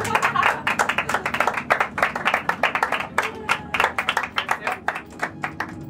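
A group of people clapping their hands fast and unevenly, with voices and laughter mixed in; the claps thin out near the end.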